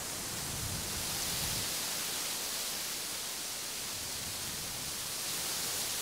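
Wind rustling the leaves of an aspen, a steady, even hiss.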